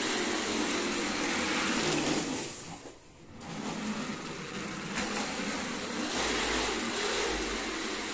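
Plastic wheels of a toddler's foot-to-floor ride-on toy car rolling and rumbling over a hard floor. The noise dies away briefly about three seconds in, then picks up again.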